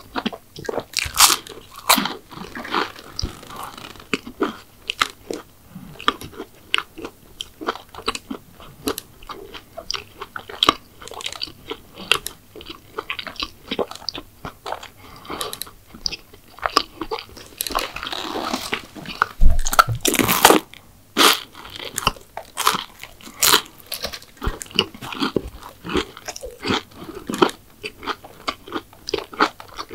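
Close-miked eating sounds: a person biting and chewing crisp dessert pastry, with steady crunching and a louder cluster of crunches about two-thirds of the way in.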